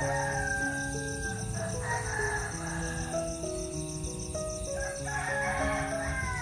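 A rooster crowing over background music of slow, held notes.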